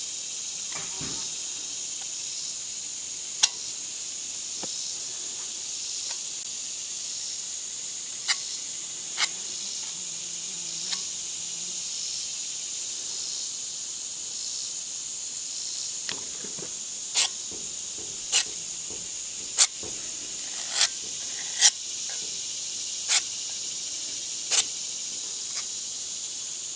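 A steady, high, shrill drone of insects such as crickets, with about a dozen sharp clicks or taps scattered through it, more of them in the second half.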